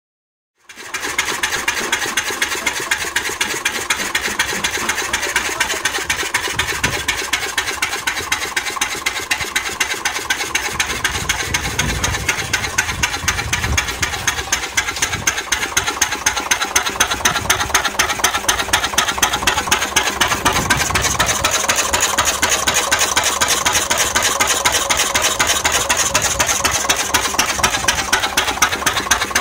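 COLO two-cylinder stationary diesel engine running steadily, with a fast, even beat of firing strokes.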